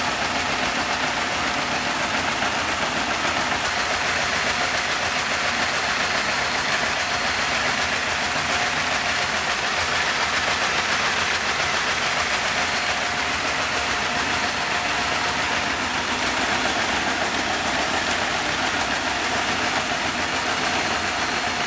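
Vacuum cleaner running steadily, a faint steady tone above an even rushing noise, its suction drawing air through a Lego Technic inline-four vacuum engine that turns over slowly with its superchargers engaged.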